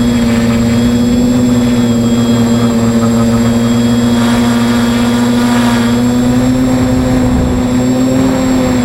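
Small electric multirotor drone's motors and propellers buzzing in flight, heard close up from its onboard camera: a loud, steady pitched hum whose pitch wavers only slightly.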